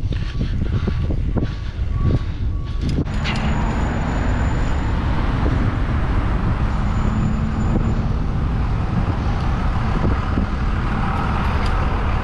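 Road noise from a moving bicycle: wind on the handlebar-mounted microphone and motor traffic going past, with sharp clicks in the first few seconds before the sound turns into an even rush of noise about three seconds in.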